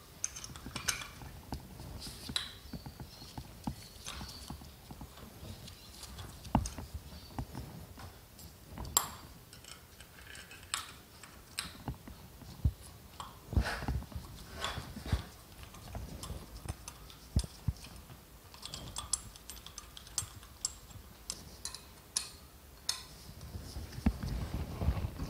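Irregular clicks, taps and light knocks of small metal parts being handled and fitted as an SU carburettor's float chamber and its angled mounting piece go onto the carburettor body, a little busier near the end.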